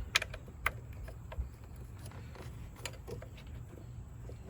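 A few sharp clicks and light knocks of hand tools and engine parts being handled while a spark plug and coil pack are fitted by hand, over a steady low background hum.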